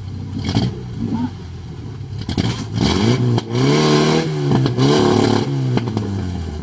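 Off-road vehicle engine idling, then revved hard from about two and a half seconds in: the pitch climbs, stays high through a couple of brief dips, and drops back near the end.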